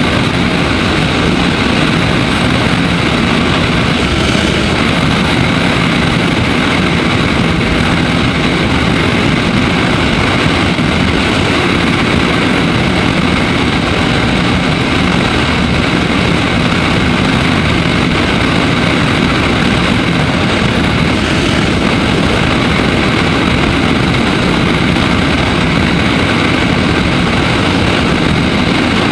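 Daelim Daystar 125cc motorcycle cruising at a steady speed: a constant engine drone mixed with heavy wind rush over the microphone, with no gear changes or revving.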